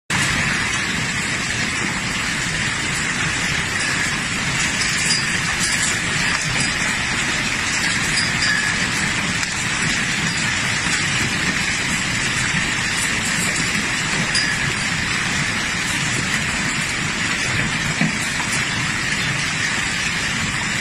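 Hail falling steadily: a dense, even patter with a few small ticks.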